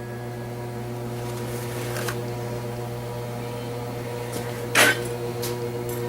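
A steady machine hum with a few fixed tones, with a single sharp knock near the end and a fainter one about two seconds in.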